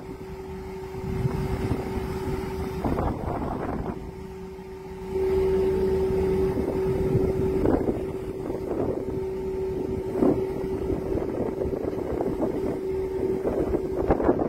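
A boat's motor humming at a steady pitch, with wind buffeting the microphone in gusts and a low rumble underneath.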